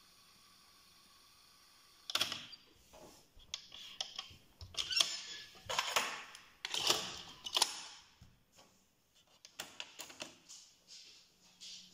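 Pioneer CT-W630R double cassette deck's buttons and tape transport mechanism clicking and clunking as play, stop and wind are pressed: a run of sharp mechanical clicks starting about two seconds in, with a short pause about two-thirds of the way through.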